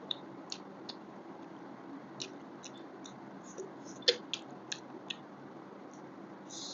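Close-miked eating sounds of chicken thigh: chewing with a scatter of short wet mouth clicks and smacks, the loudest about four seconds in.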